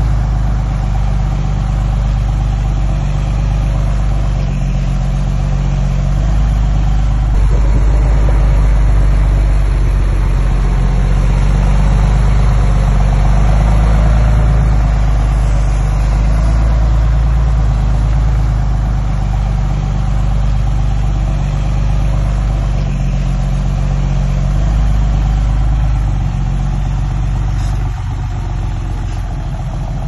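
Diesel engine of heavy construction machinery running steadily, a low drone that swells a little in the middle and eases slightly near the end.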